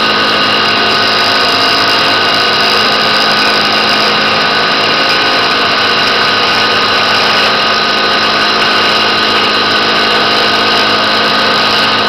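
CNC milling machine spindle running with an end mill cutting aluminium plate: a steady machine hum and whine of several held tones, unchanged throughout.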